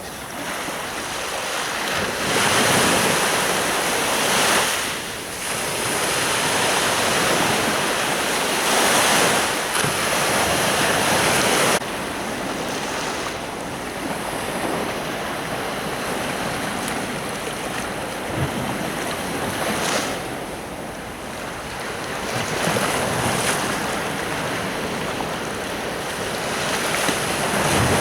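Sea surf breaking on a beach, the wash swelling and falling back every few seconds.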